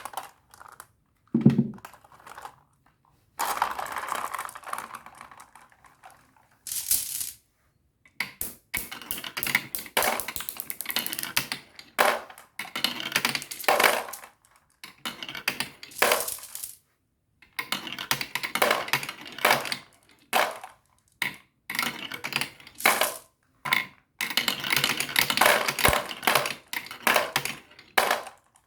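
Marbles rolling and clattering down a marble-run track: rapid clicking rattles in bursts, broken by short silences, with a longer rolling stretch a few seconds in.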